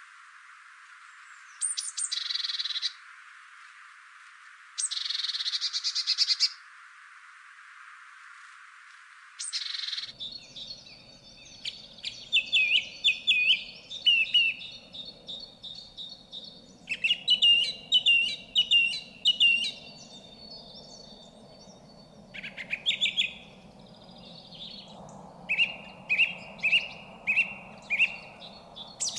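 Songbirds singing: two buzzy trills in the first few seconds, then a run of chirping phrases made of quick falling notes, ending with a row of five repeated notes.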